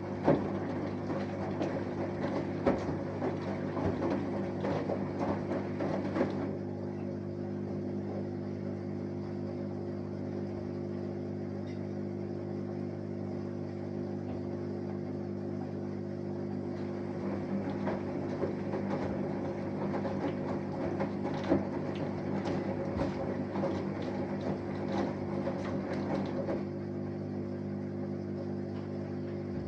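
Samsung Eco Bubble front-loading washing machine with an inverter motor in its wash cycle. A steady machine hum runs throughout. Over it, the drum tumbles the wet laundry with sloshing and small knocks for about six seconds, pauses for about ten, then tumbles again for about ten seconds.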